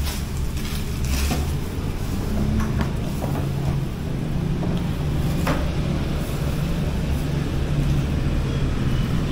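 Steady low rumble with a few brief light clicks and knocks.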